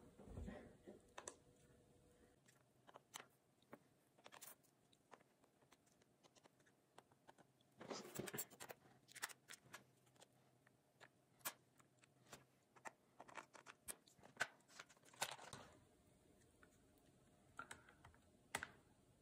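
Faint, scattered clicks and scratches of a small precision Phillips screwdriver working tiny screws out of a laptop battery, with light taps of metal on the laptop's chassis; the clicks come in brief flurries about eight seconds in and again near fifteen seconds.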